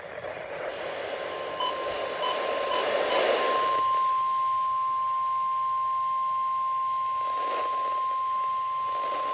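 NOAA Weather Radio's 1050 Hz warning alarm tone: one steady high beep that starts about a second in and holds for about eight seconds, over radio hiss that fades out after about four seconds, with a few brief clicks in its first two seconds. The tone marks a warning-level alert, here a flash flood warning.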